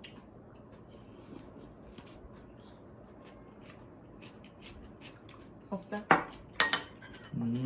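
Utensils clicking faintly against bowls and dishes during a meal, with a couple of louder clinks about six seconds in, the second one ringing briefly.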